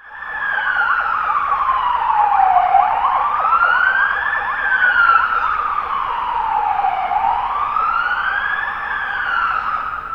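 Emergency vehicle siren wailing, its pitch sliding slowly down and back up through about two full cycles. It starts suddenly.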